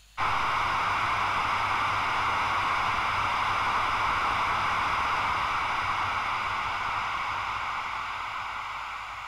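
Steady static-like hiss from an experimental noise-music recording, strongest in the middle range. It cuts in suddenly just after the start, then slowly fades over the last few seconds.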